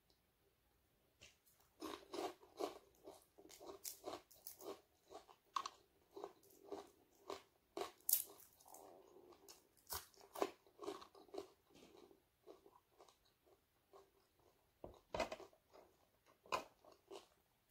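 Close-up eating of crispy fried dried fish: rapid, irregular crunching and chewing that starts about two seconds in, thins out after about twelve seconds, and picks up with a few sharp crunches near the end.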